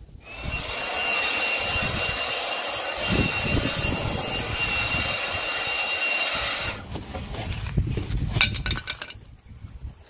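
Cordless handheld blower running steadily with a thin high whine, blowing sawdust off a freshly sawn burl slab; it cuts off about seven seconds in. A couple of seconds of knocks and scrapes follow.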